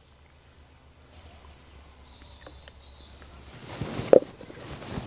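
Faint outdoor background, then about four seconds in a clay pot scrapes and knocks as it is set onto a mud stove over a wood fire.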